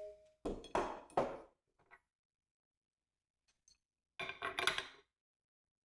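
Metal tools and hardware clinking and rattling in two short bursts, one in the first second and another about four seconds in.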